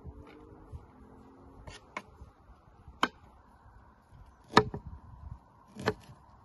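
Kitchen knife cutting broccoli florets on a wooden cutting board: about six separate sharp knocks of the blade hitting the board. The loudest knock comes about four and a half seconds in.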